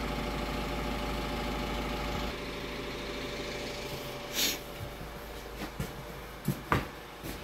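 Volvo EWR150E wheeled excavator's diesel engine idling steadily, growing quieter about two seconds in. A short rustle follows, then a few light knocks near the end.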